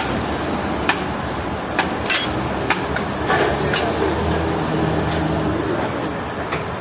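Sawmill machinery engine running steadily with a low drone, with sharp knocks every second or so.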